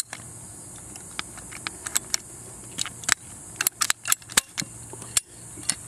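Hand PVC pipe cutters clicking and snapping irregularly, a dozen or so sharp clicks spread over several seconds, as they are worked through a PVC sprinkler pipe.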